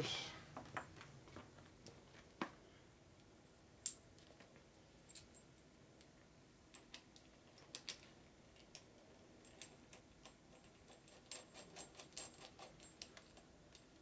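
Faint, scattered clicks and light metal taps of bolts and washers being handled and fitted at a motorcycle fork's top clamp, with a quicker run of clicks near the end.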